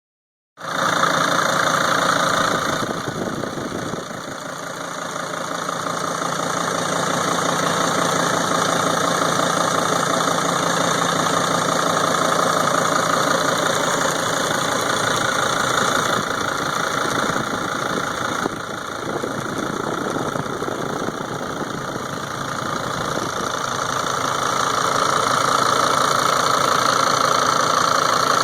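2003 Sprinter van engine idling with a rapid, steady knocking and ticking, which the owner finds louder than normal and cannot yet trace to a cause.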